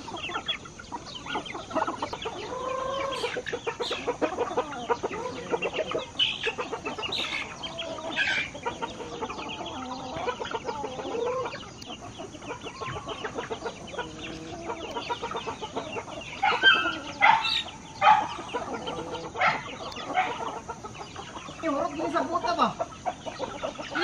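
A free-range flock of chickens, roosters, hens and chicks, clucking and calling continuously. A burst of louder, sharper calls comes about two-thirds of the way through.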